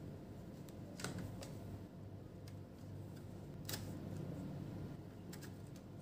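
Scattered small clicks and taps of an Asus laptop's plastic and metal parts being handled and pressed into place on its open underside, about nine in six seconds, over a faint steady low hum.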